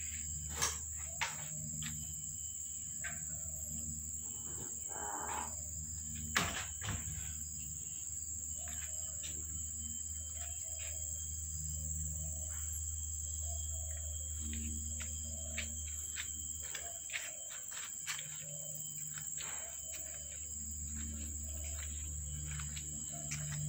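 Steady high-pitched insect drone, crickets or cicadas, over low outdoor background hum, with scattered small clicks.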